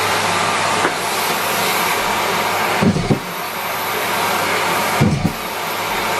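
Miele Complete C3 canister vacuum cleaner running with a steady rushing whir as it sucks up socks, with three brief knocks and dips in the airflow hiss about three, five and six and a half seconds in.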